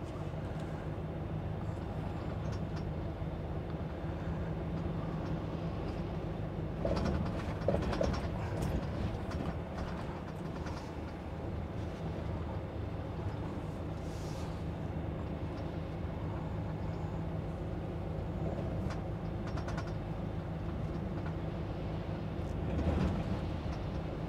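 A lorry's engine running steadily on the move, heard from inside the cab as a low hum with road noise, with a few brief knocks and clicks.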